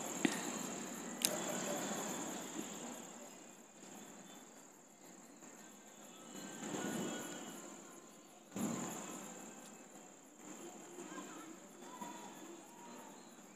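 Faint rubbing and squishing of hands kneading a stiff flour dough in a steel bowl, with a sharp tap about a second in and swells of handling noise near the middle. A steady high-pitched whine runs underneath throughout.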